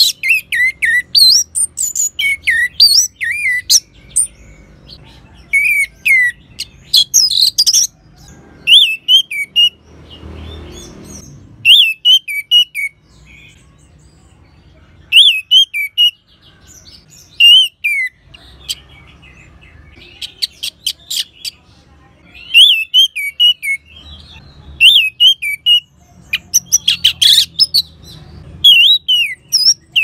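Orange-headed thrush singing a loud, varied song: quick whistled notes mixed with rapid high chips, delivered in bursts separated by short pauses.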